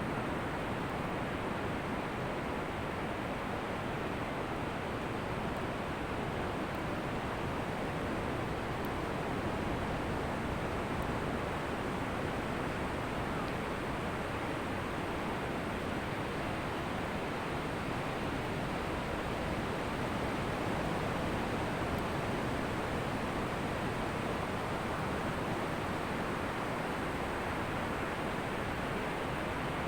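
Ocean surf washing on a beach, a steady rushing hiss with no distinct wave breaks standing out.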